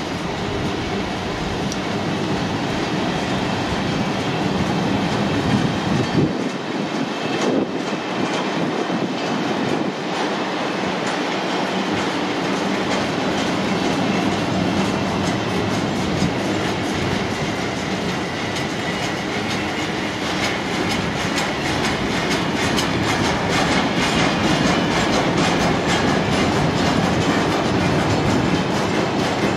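Loaded two-tier car-carrier freight wagons rolling past: a steady rumble of steel wheels on rail, with dense, rapid wheel clicks in the second half.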